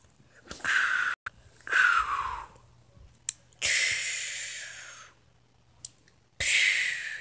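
Mouth-made fight sound effects: a string of breathy hissing whooshes, some sliding down in pitch and one long one in the middle that fades away, with a light click between them.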